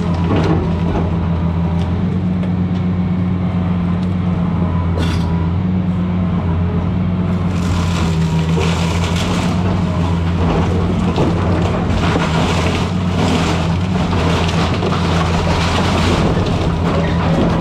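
Diesel engine of a 200-size excavator running steadily, with repeated crunching and cracking of wood and debris as the house is torn down, heavier from about halfway through.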